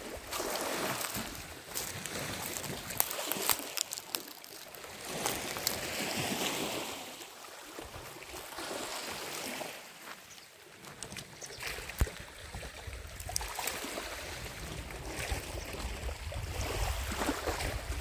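Small waves washing in against the shore and floating debris, the wash rising and falling every few seconds, with wind on the microphone stronger near the end and a few sharp clicks.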